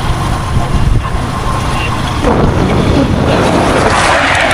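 Wind buffeting the microphone over road and vehicle noise, a loud, uneven rumble while travelling along the road.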